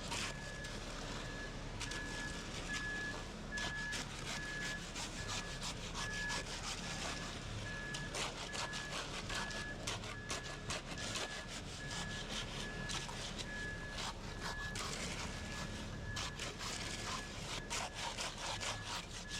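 Backup alarm of a concrete mixer truck beeping steadily about twice a second over a running diesel engine, with scraping that fits tools working wet concrete.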